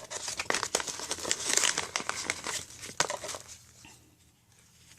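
Sticky packaging of a small product sample being crinkled and torn open by hand, a dense crackling for about three seconds that then dies away.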